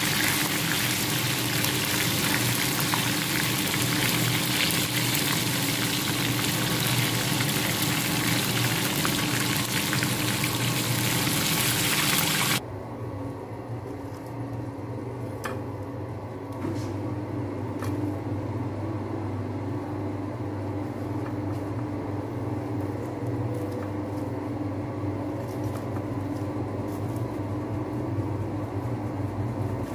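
Chicken wings deep-frying in hot oil: a dense, steady sizzle that cuts off suddenly a little under halfway through. After that there is a quieter steady hum with a few faint clicks.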